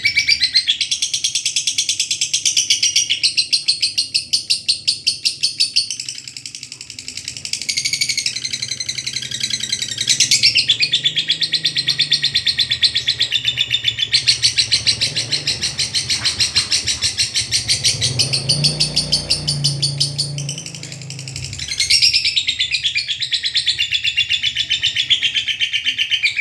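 Lovebird singing a long 'ngekek' chatter: a fast, unbroken run of high, rapid chirps that eases off briefly twice before starting up again.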